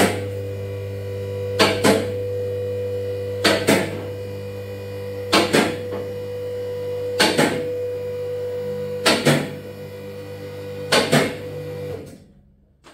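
Electric hoist motor running with a steady mains hum, a sharp double click coming about every two seconds, then stopping about a second before the end.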